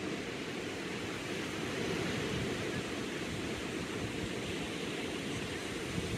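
Low ocean waves breaking and washing up a sandy beach, a steady rush of surf that swells slightly about two seconds in.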